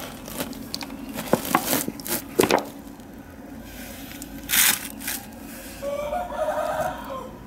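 Several sharp clicks and short rustles in the first few seconds and a brief loud hiss midway, then a short animal call with a wavering pitch about six seconds in.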